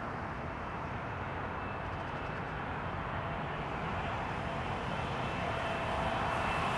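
Jet airliner on final approach, its engine rumble growing slowly louder as it nears, with a high engine whine coming in near the end.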